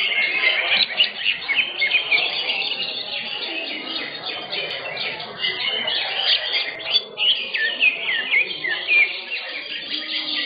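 Greater green leafbirds (cucak hijau) singing in a dense, unbroken stream of rapid chirps and short down-slurred whistles, several birds overlapping.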